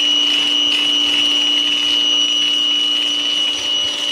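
Simoniz Compact 1650 PSI electric pressure washer's motor and 5-piston pump running steadily under load with a high whine, while the foam blaster hisses soap spray onto a car.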